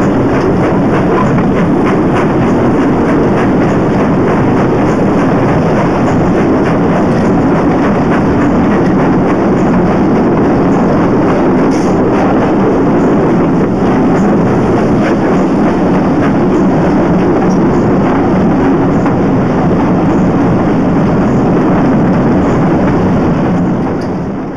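Steam-hauled passenger train running along the track, heard from an open carriage window: a steady, loud rumble of wheels on rail with air rushing past. The rumble drops a little right at the end.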